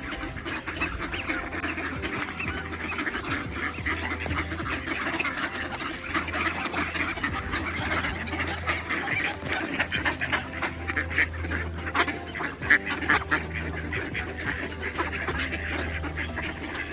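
Many ducks quacking at once, a busy overlapping chatter of calls over a steady low hum.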